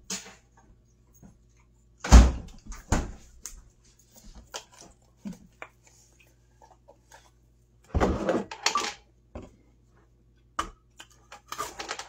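Kitchen handling noises: a refrigerator door is shut with a thud about two seconds in, then scattered knocks and rustles as things are taken out and handled, with a denser burst of them about eight seconds in.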